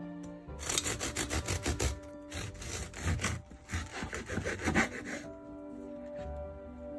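A long knife sawing back and forth through a loaf of gluten-free bread onto a wooden cutting board, in quick repeated rasping strokes that stop about five seconds in. Background music plays underneath.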